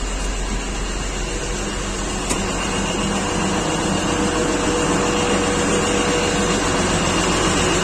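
Steady blowing of a Don Roque 150 combine harvester's cab air conditioning, with the combine's engine running underneath at slightly raised revs. Its faint steady tones grow a little louder about three seconds in, and there is a single click a little after two seconds.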